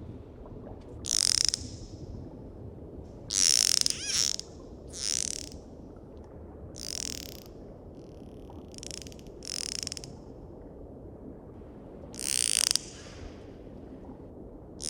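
Dolphins calling: about eight short, high-pitched pulsed bursts at uneven intervals, some carrying a whistle that bends up and down, over a steady low background noise.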